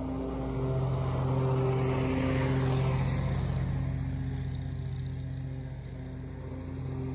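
Grasshopper 329 zero-turn mower's big-block Vanguard V-twin engine running steadily under load while its deck mulches thick piles of dry leaves. A rush of leaves and debris swells as it passes close, about two seconds in, then eases off.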